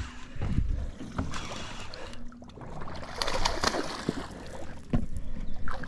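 A baitcasting reel being wound in against a hooked fish, its fine ticking under a steady wind rumble on the microphone, with rushes of water splashing at the surface around the middle and near the end.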